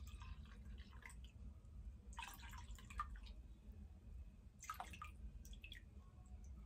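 Last of a small glass bottle of pink drink being shaken out into a wine glass: faint drips and short trickles, in a few separate spurts.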